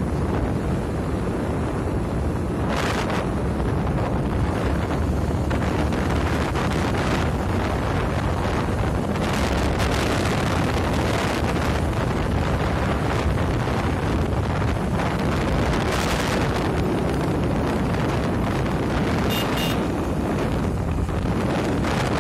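Wind buffeting the microphone of a vehicle moving along a road, a steady low rumble with a rushing noise over it. Brief louder rushes come about 3 and 16 seconds in, and two short high beeps a few seconds before the end.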